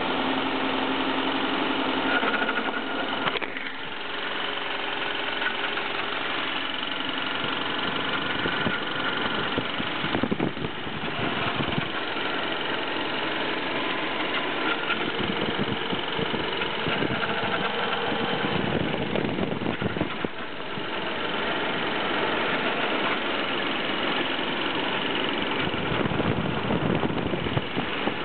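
BMW M44B19 four-cylinder engine idling on a cold start with a strange metallic noise whose cause is unknown. The revs hunt up and down between about 1000 and 1500 rpm.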